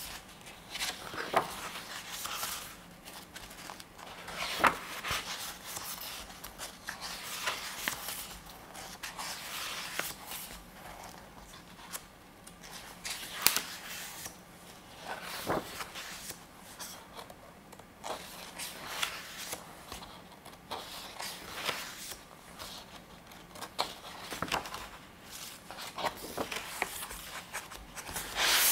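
Pages of a softcover photobook with a PVC jacket being turned by hand: repeated paper rustles and soft flicks with short pauses between them. A louder handling noise comes near the end as the book is closed.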